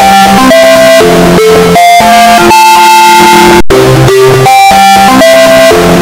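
Unihertz phone ringtone, a plucked, guitar-like melody of short stepped notes, boosted to full volume so it sounds harsh and distorted. The sound cuts out for an instant about three and a half seconds in.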